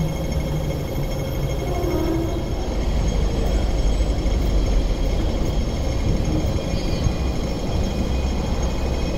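Hong Kong double-decker electric tram running over street track toward the listener, a steady low rumble that swells around the middle.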